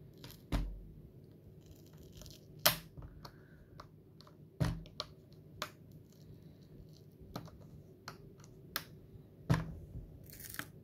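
Plastic display bezel of a Dell Latitude laptop being pried off by hand: a series of sharp clicks and snaps as its latches let go. Near the end there is a short peeling rasp, which the repairer takes to be tape adhesive letting go.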